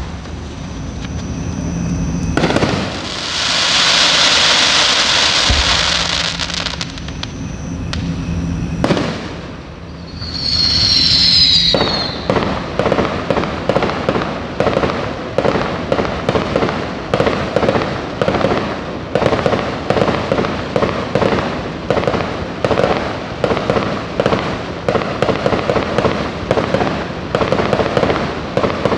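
Aerial fireworks going off: a burst about two seconds in followed by several seconds of hissing, another burst near nine seconds, and a short falling whistle. From about twelve seconds in, a long run of rapid crackling pops.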